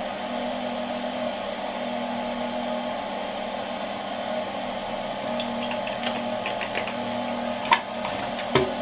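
Steady mechanical hum, like a small appliance or fan running, with a few light clicks and knocks near the end.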